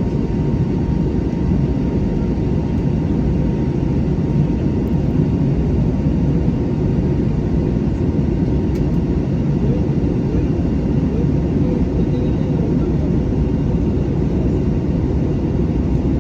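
Jet airliner's steady low rumble of engines and rushing air, unchanging in level.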